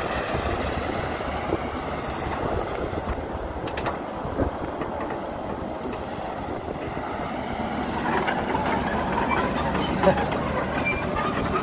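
Diesel engine of a CAT hydraulic excavator running under load as it digs and swings its bucket. In the second half there is a stretch of clatter and sharp knocks, the loudest about ten seconds in, as soil is dumped into the steel bed of a dump truck.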